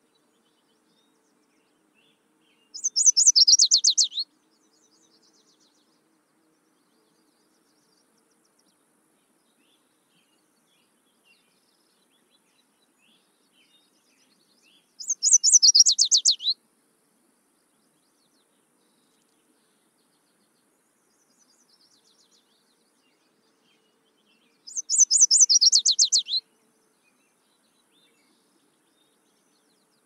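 Common yellowthroat (yellowthroat warbler) singing: a quick, high run of rapid repeated notes, falling slightly at the end and lasting about a second and a half. It comes three times, about eleven seconds apart, the same each time.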